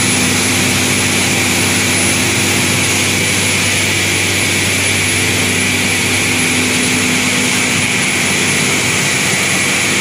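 800 mm melt-blown nonwoven production line running: a loud, steady rush of air with a steady hum underneath.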